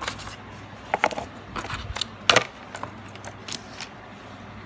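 Handling noise from a smartphone's cardboard box and the phone being picked up: a series of light clicks and knocks, the sharpest about two and a half seconds in.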